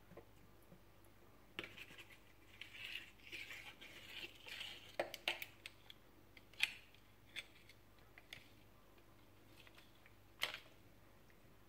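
Light scratching and scraping against a stainless steel sink for a few seconds, then a handful of sharp, scattered clicks and taps. The last click, about ten seconds in, is one of the loudest.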